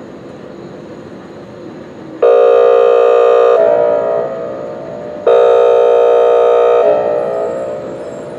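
Whelen WPS-2905 electronic outdoor warning siren sounding two loud, steady blasts, each starting abruptly and lasting about a second and a half before tailing off, the first about two seconds in and the second about three seconds later. Before the first blast there is a steady, quieter background noise.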